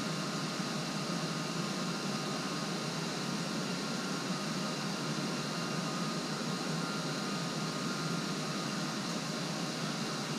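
Steady machine hum and hiss, with a faint high whine running through it and no distinct knocks or steps.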